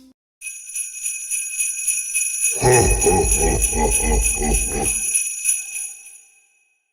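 Sleigh bells jingling, with a low rhythmic beat joining about two and a half seconds in and stopping near five seconds; the jingling then fades out.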